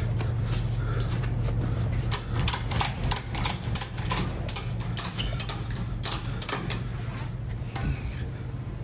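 An irregular run of sharp clicks, about three a second, starts about two seconds in and fades out near the end, over a steady low hum.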